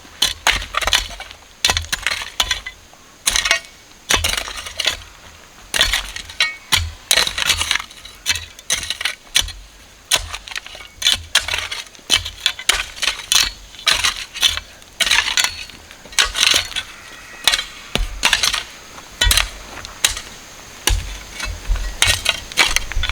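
A blade chopping sugar cane stalks. Repeated sharp, crisp strikes, about one or two a second at an uneven pace, each with a dull thud under it.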